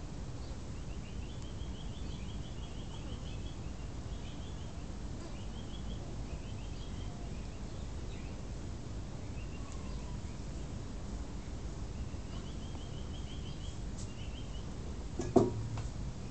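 Outdoor ambience: birds chirping in quick trills over a steady low rumble. Near the end comes a sharp, loud knock as a plastic chair is picked up and moved.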